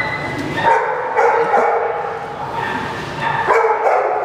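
Dog barking: two drawn-out barks, one about a second in and another near the end.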